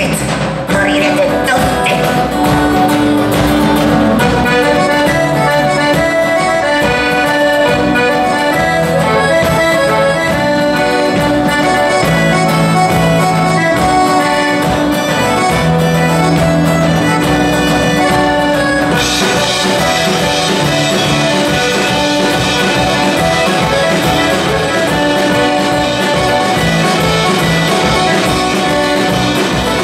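Live folk band playing an instrumental passage, the accordion to the fore over strummed acoustic guitars. About nineteen seconds in the sound gets fuller and brighter.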